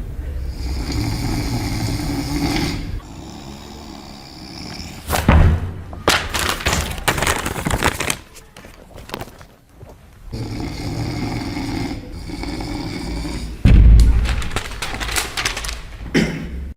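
A man snoring loudly and on purpose as a prank: two long rasping snores about ten seconds apart, each followed a few seconds later by a louder, noisier burst.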